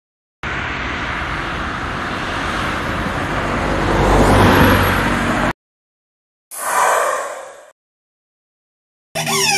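Rushing noise from a sound effect, swelling for about five seconds and then cut off abruptly, followed by a second short rush of about a second. Music begins just before the end.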